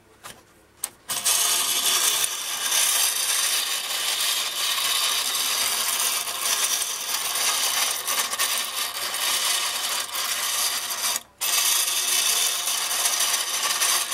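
Clockwork tin-plate toy train set running, the wound spring mechanism whirring and the little tin train rattling round its circular tin track. It starts about a second in after a couple of clicks, stops briefly near 11 seconds and then runs on.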